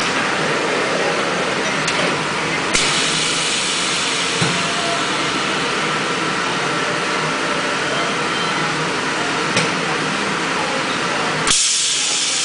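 High-frequency plastic welding machine working through a weld cycle with a steady mechanical running noise. A hiss sets in about three seconds in, and a short, louder burst of air hiss comes near the end, typical of a pneumatic press releasing.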